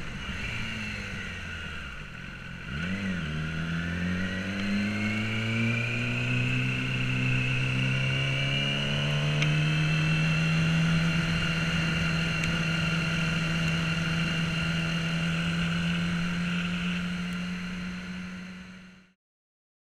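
Yamaha YZF-R6 inline-four engine with an Akrapovic exhaust, under way: about three seconds in the revs dip and jump back once, then the engine pulls with a steadily rising pitch for several seconds and settles to a steady note. The sound fades out near the end.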